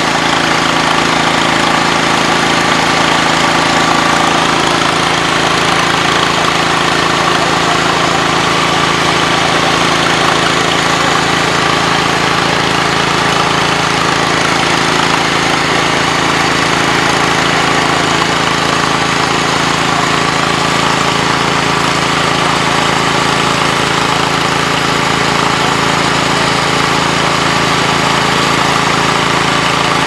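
A steady engine drone running at an even speed, with no change in pitch or loudness.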